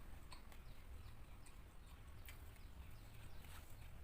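Faint chewing of raw papaya leaves and mango shoots: scattered soft mouth clicks and crunches over a low steady hum.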